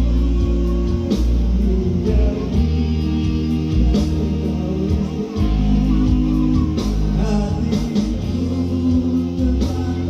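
Music with a singing voice, guitar and a heavy bass line on a steady beat.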